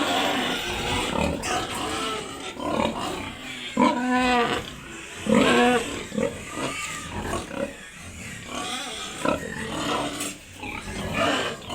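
Pigs grunting and squealing, with two louder pitched cries about four and five and a half seconds in.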